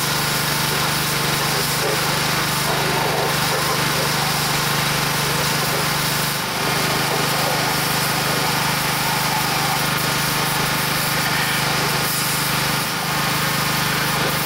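Pressure washer running with its small engine at a steady speed, the water jet hissing as it sprays a cast-iron engine block. The sound dips briefly twice, about six and thirteen seconds in.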